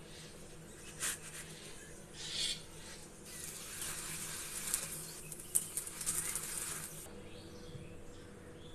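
Silicone spatula scraping against a frying pan as it works under a thin flatbread: two short scrapes, then about four seconds of continuous scraping and rustling with small clicks, over a faint steady hum.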